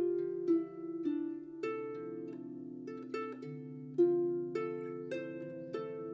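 Background music: a gentle melody of plucked string notes, each struck sharply and fading away over held lower notes.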